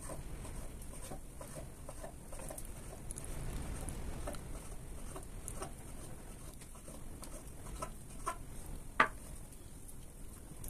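Scattered light taps and patter over a low steady hiss, with one sharp click about nine seconds in.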